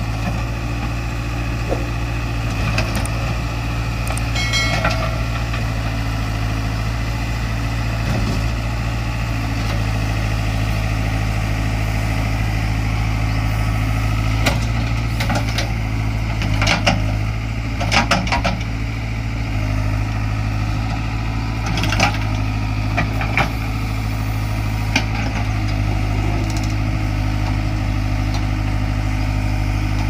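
JCB 3DX backhoe loader's diesel engine running steadily as the backhoe arm digs a pit, with a few short knocks and clanks from the working bucket and arm scattered through.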